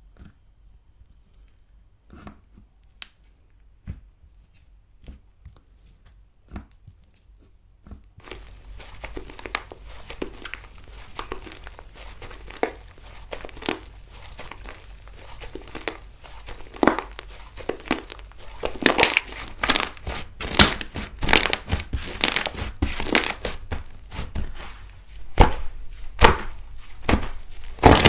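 Slime being worked by hand: a few scattered clicks at first, then from about eight seconds in a dense run of crinkly crackling that grows louder.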